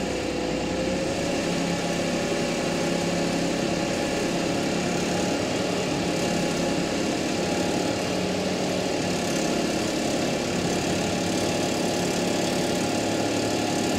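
Audi A6 3.0 TFSI V6 engine running steadily at around 1500 rpm with a strange noise the owner wants diagnosed. A thin tone sits over the engine note and wavers slightly in pitch for the first couple of seconds.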